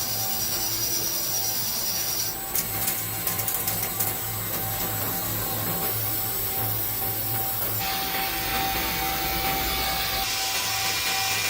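CNC machine cutting a fan rotor: a steady tone and low hum under a rasping cutting noise, with a run of sharp clicks a few seconds in. The sound changes abruptly a few times.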